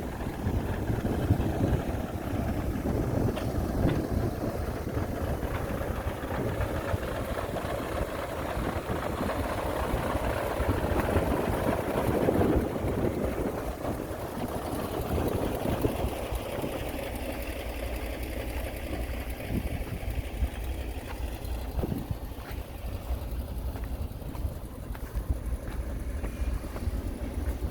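Heavy diesel engine of a construction machine running steadily with a low, rough rumble.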